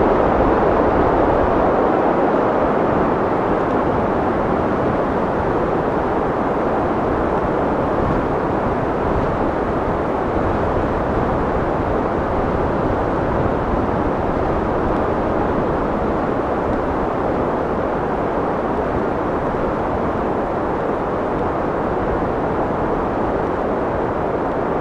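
Steady rushing wind, a dense even noise that eases off slightly over the span.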